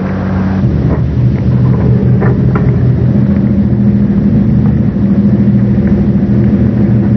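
A White semi-truck's engine running steadily at idle, low-pitched and even, with small shifts in its note about half a second in and again about three seconds in.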